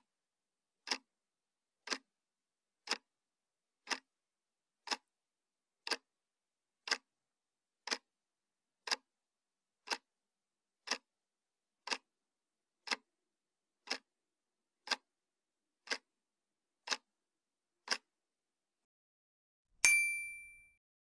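Quiz countdown-timer sound effect: a clock ticking once a second, nineteen ticks, then a single bright bell ding near the end that marks the answer being revealed.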